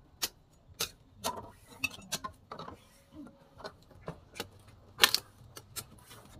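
Sharp, irregular knocks and snaps, two or three a second, with one louder crack about five seconds in: sugarcane stalks being cut and trimmed by hand.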